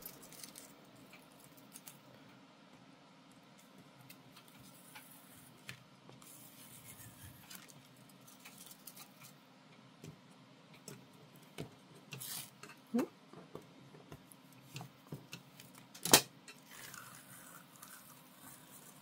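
Washi tape being peeled off watercolour paper: quiet, intermittent tearing and crackling with scattered small taps, and a sharp click about sixteen seconds in.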